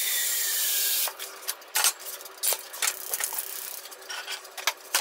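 A loud hiss that cuts off suddenly about a second in, then scattered clicks and knocks of cookware and utensils being handled on a kitchen counter and gas hob, as a frying pan is lifted.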